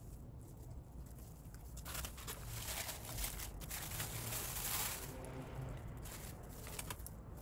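Thin plastic sheet crinkling and rustling as gloved hands crumple it and pull it away from a cement-soaked cloth flowerpot, loudest from about two to five seconds in, with a few light clicks of handling around it.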